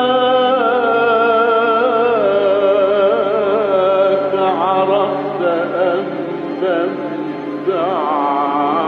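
Egyptian male religious chanter's solo voice singing a long melismatic phrase of Sufi inshad. He holds sustained notes with rapid ornamental wavers and slides between pitches. The phrase breaks off briefly near the end, and a new one starts.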